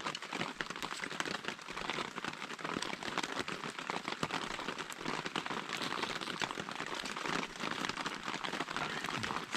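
Rain falling steadily, a dense patter of many small drops.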